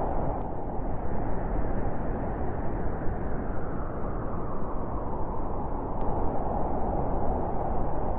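Wind blowing in a snowstorm, a steady low rushing noise that eases a little through the middle and swells again near the end.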